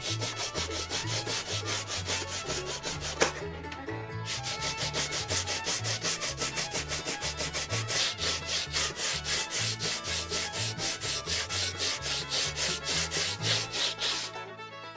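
A sanding block rubbed back and forth along a glued-up bamboo fly rod blank to take off the excess glue, in quick, even strokes. There is a sharp tap and a brief pause a few seconds in, and the strokes stop near the end.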